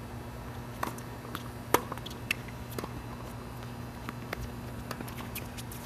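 Tennis rally: a series of sharp pops from rackets striking the ball and from the ball bouncing, the loudest a little under two seconds in, over a steady low hum.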